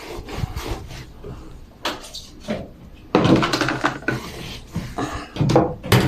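Irregular knocks, bumps and clatter from the plastic twin tub washing machine being handled, with a louder rustling stretch about three seconds in.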